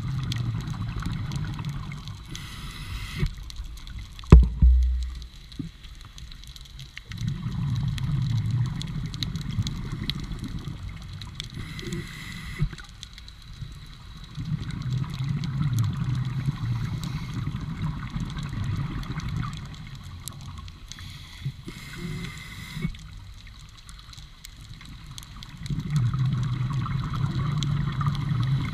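A scuba diver breathing through a regulator underwater: a short hiss at each inhalation, about every ten seconds, then a long burbling rush of exhaled bubbles. A single sharp thump about four seconds in is the loudest sound.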